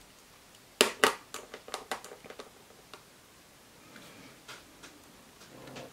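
Small plastic gel-polish bottle and its brush cap handled on a glass work plate: two sharp clicks about a second in, then a run of lighter ticks and taps as the bottle is set down and opened, with a few more small clicks near the end.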